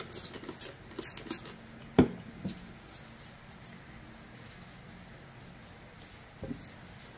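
Light clicks and taps of small objects being handled and set down on a work table, with the sharpest knock about two seconds in and one more near the end.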